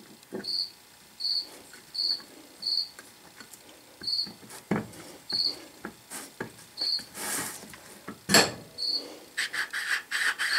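A cricket chirping, short high chirps repeated roughly once a second. Over it come occasional clicks and scrapes of the steel chuck parts being handled, the sharpest click about eight seconds in, followed near the end by a quick run of scraping clicks.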